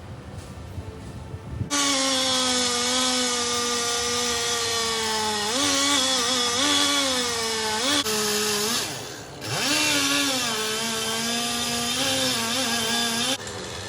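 Two-stroke chainsaw running at high revs under cutting load, its whine sagging and wavering as the chain bites. It starts suddenly about two seconds in, drops off briefly and revs back up around the middle, then cuts off suddenly near the end.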